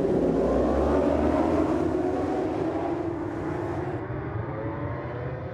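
A full grid of superbike racing motorcycles accelerating hard off the start line, many engines at high revs together. Their pitch rises over the first couple of seconds as the pack pulls away, and the sound eases off slightly toward the end.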